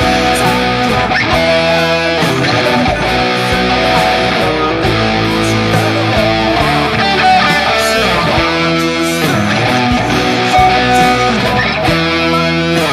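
Electric guitar music: sustained, ringing notes and chords over a steady beat.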